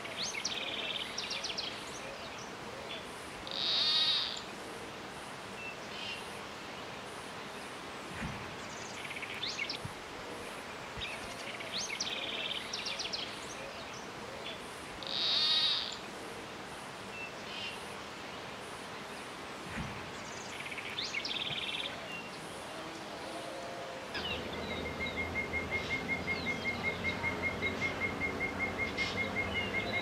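Woodland bird calls: short chirps and call phrases come and go every few seconds over a steady background hiss. From about 24 seconds in, a fast, even pulsing trill takes over, about five pulses a second.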